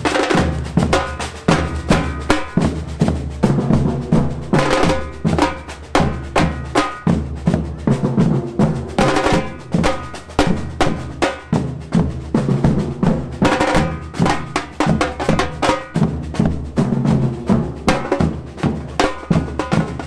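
Marching street drum band playing a fast, steady rhythm on large drums struck with sticks and mallets, deep bass beats under sharp snare-like hits.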